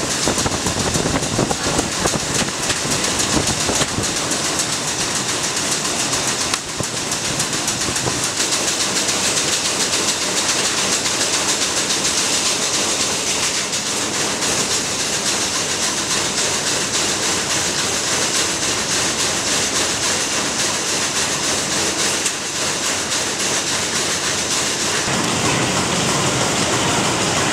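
Factory machinery running, a steady dense rattling clatter with a strong hiss over it.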